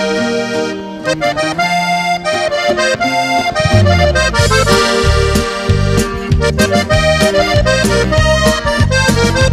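Button accordion playing the melody of a band's instrumental introduction. About four seconds in, a bass line comes in under it with a steady beat.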